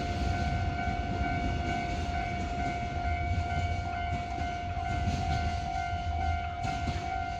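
Container freight train rolling past with a low, steady rumble from its wagons. Over it, a level crossing warning alarm sounds a steady high tone.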